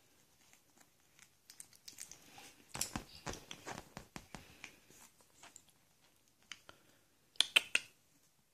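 Shih Tzu puppy mouthing and nibbling at a person's fingers: a run of small clicks and crackles, busiest in the middle, with a few sharper, louder clicks near the end.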